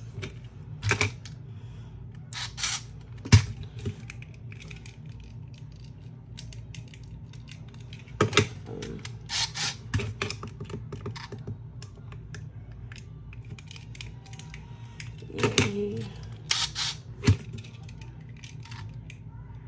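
Irregular clicks and taps of hands handling a small plastic toy robot while prying at its battery pull tab, over a steady low hum.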